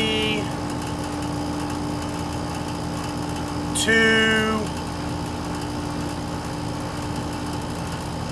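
A 3-ton air-conditioner condensing unit's compressor runs with a steady hum while it pumps the refrigerant down. The liquid valve is shut and the suction pressure is falling toward zero.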